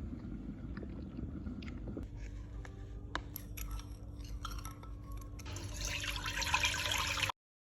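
Liquid being poured and dripping, with a few light clinks, then a louder hissing pour in the last couple of seconds that cuts off suddenly.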